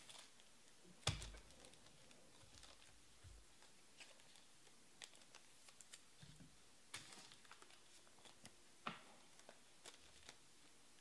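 Near silence broken by faint, scattered clicks and taps, with one louder knock about a second in.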